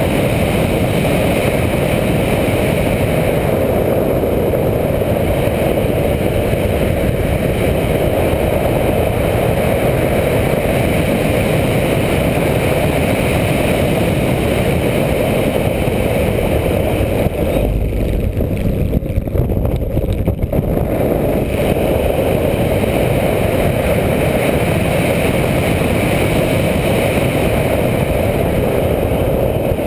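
Single-engine propeller plane in flight: a steady, loud mix of engine, propeller and rushing airflow, heard from a camera on the tail. About two-thirds of the way through the hiss thins for a few seconds.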